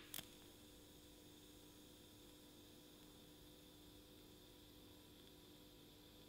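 Faint, steady hum and hiss of a TIG welding arc on chromoly steel frame tubing. It begins with two sharp clicks right at the start as the arc is struck.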